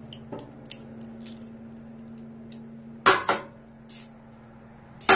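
Metal clinks of a socket ratchet working a nut and bolt on a garden tractor: light ticks, then sharp metallic clanks about three seconds in and again near the end. A low steady hum stops about three seconds in.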